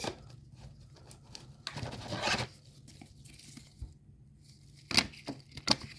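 Trading cards and their foil pack wrapper being handled, with a short tearing rustle about two seconds in and two sharp clicks near the end.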